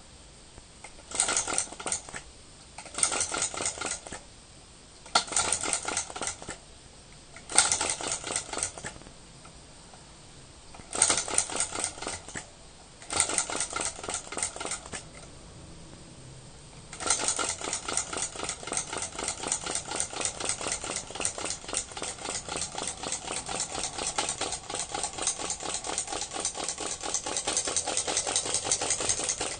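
Small vacuum (flame-licker) engine of a Gakken model car being started by hand: six times the flywheel is spun and the engine ticks rapidly for a second or so, then dies away. About 17 seconds in it catches and keeps running on its own with a steady rapid ticking.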